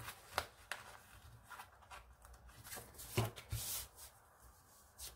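Hands handling paper, a sticker sheet and planner pages: faint rustling with scattered light clicks and taps as stickers are peeled and pressed on, and a soft swish near the end.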